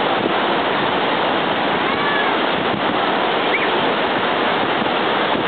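Steady wash of surf breaking on the beach, mixed with wind on the microphone. A couple of brief high-pitched calls rise and fall over it, about two seconds and three and a half seconds in.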